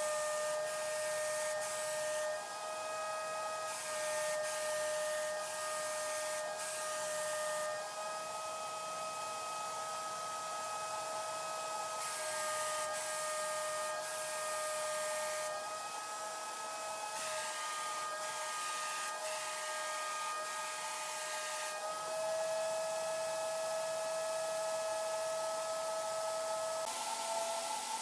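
A motor-driven tool running with a steady whine, with stretches of hiss cutting in and out.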